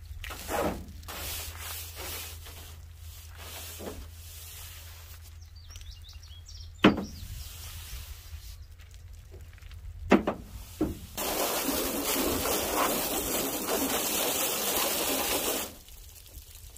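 A brush scrubbing a pickup truck's ribbed bed liner in repeated strokes, with two sharp knocks about seven and ten seconds in. About eleven seconds in, a hose spray nozzle starts up, water hissing steadily onto the liner for about four seconds, then cuts off suddenly.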